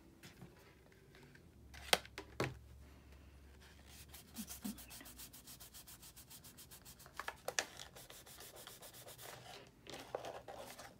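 Fingers rubbing and pressing hot-glued cardstock petals together: a fast, even scratchy rubbing of paper for several seconds in the middle, with a couple of sharp paper clicks about two seconds in.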